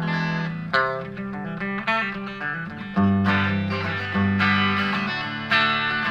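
Electric guitar played through a small amp: a Fender Modern Player Telecaster on its bridge pickup coil-tapped to single coil, into a Vox VT20X. Picked lead notes and double-stops, with the strongest attacks about three and five and a half seconds in.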